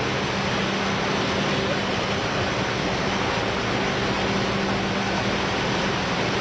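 ERSA Versaflow 4050 selective soldering machine running while it solders a board's leads: a steady hiss of fans and blowers with a constant low hum.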